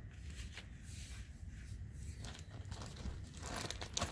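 Faint handling noises: small clicks as metal parts are set down, then rustling of a plastic zip bag of screws near the end.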